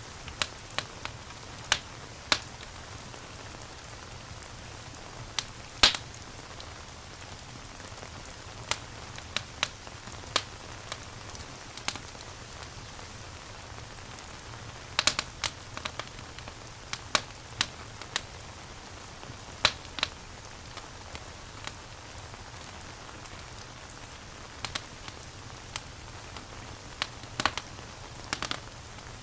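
Steady rain making an even hiss, with a wood fire crackling over it: sharp pops at irregular intervals, sometimes several in quick succession.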